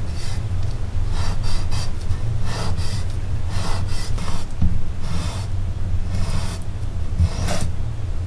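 Chinese cleaver scoring a pig kidney on a wooden cutting board: short slicing strokes, irregular at about one or two a second, with the blade scraping the board, over a steady low hum.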